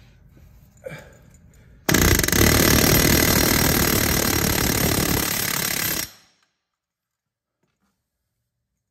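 Pneumatic air hammer rattling rapidly and loudly for about four seconds, then cutting off abruptly. It is hammering at a Toyota Avalon's right-side driveshaft to free a carrier bearing stuck in its housing.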